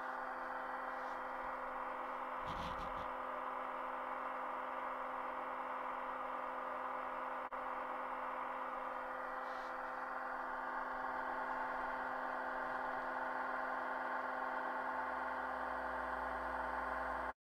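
HO-scale Athearn Genesis mechanical reefer's sound decoder playing its diesel genset refrigeration-unit running sound through a Soundtraxx Mega Bass 27 mm speaker: a steady droning hum with fixed tones. It cuts off suddenly near the end.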